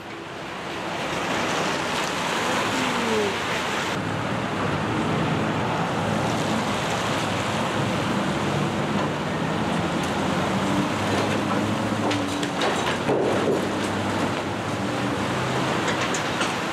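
Traffic passing on a wet street, tyres hissing on the rain-soaked pavement, over the low running of diesel engines.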